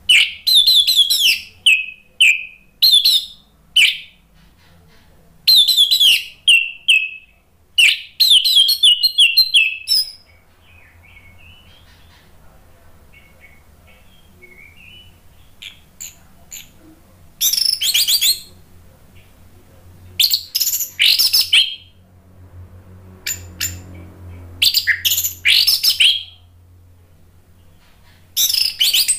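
Orange-headed thrush (anis merah) singing in loud bursts of fast, varied phrases, each a second or a few seconds long. There is a quieter stretch of faint calls in the middle, and a faint low hum runs underneath.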